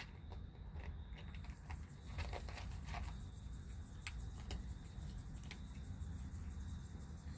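Soft rustling and scattered light clicks from a kitten being handled and petted, over a low steady hum.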